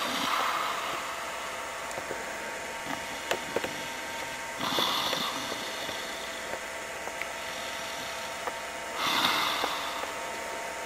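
A person lying on her back snoring: three long, noisy breaths about four and a half seconds apart.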